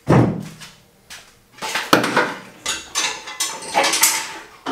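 A sharp knock, then after a short pause about three seconds of irregular clattering and rustling.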